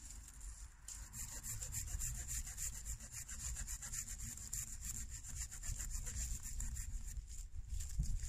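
Folding pruning saw cutting through a dry poplar branch in quick back-and-forth strokes, starting about a second in.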